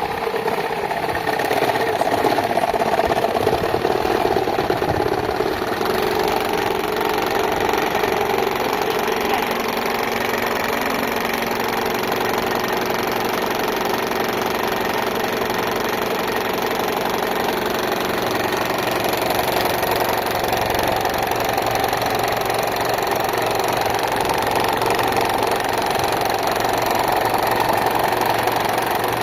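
Electric fan with a broken blade running, a steady, unbroken mechanical noise.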